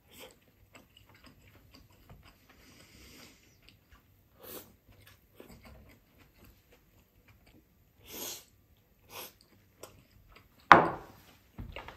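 A man eating rice from a bowl with chopsticks: soft chewing and mouth sounds with a few short breaths through the nose, and one sharp loud knock near the end.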